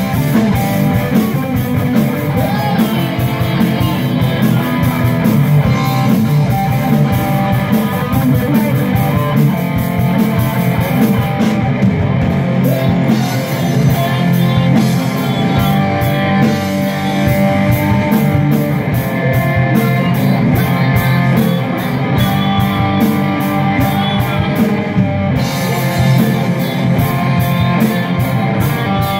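Live rock band playing: electric guitars, bass and a drum kit keeping a steady beat, with a lead singer over a PA.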